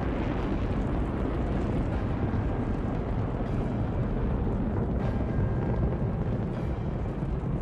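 A Space Shuttle's solid rocket boosters and main engines firing during ascent: a loud, steady, deep rumble.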